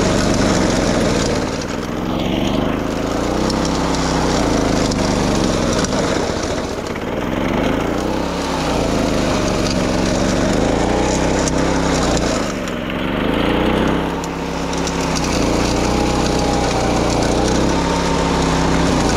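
Walk-behind wing mower's small engine running under load while mowing grass, its note sagging and recovering several times.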